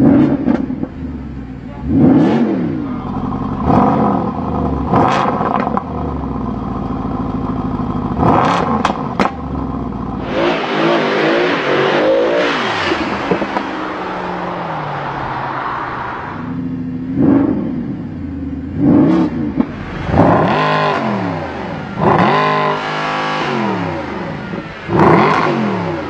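Mercedes-Benz SLS AMG's 6.2-litre V8 revved in a series of short blips, each rising and falling in pitch. In the middle comes a longer, noisier stretch of hard running, lasting several seconds.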